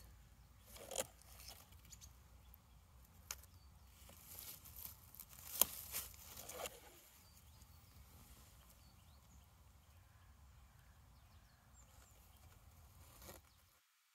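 A stick prodding through dead leaves and loose bones: scattered rustles with a few sharp clicks and taps, the loudest about five and a half seconds in, over a faint outdoor hum. The sound drops out just before the end.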